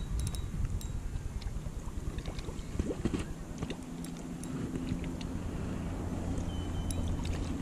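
Wind buffeting the microphone, a rumbling noise throughout. About halfway through, a steady low hum joins and runs on until near the end.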